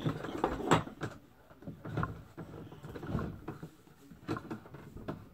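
Irregular bumps, clicks and rustles of handling close to the microphone.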